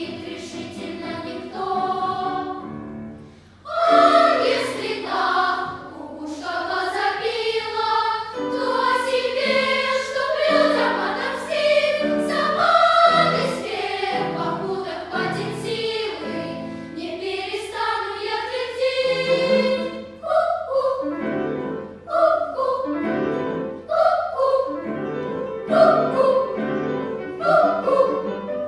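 Children's choir singing in several parts. Near the start the singing breaks off briefly, then comes back in louder. Toward the end it moves into shorter, separate notes.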